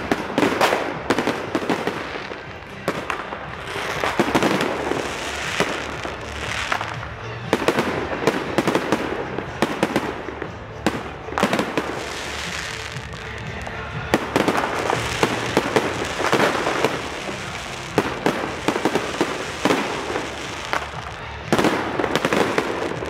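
Fireworks going off one after another: repeated sharp bangs and crackling over a continuous din of further explosions.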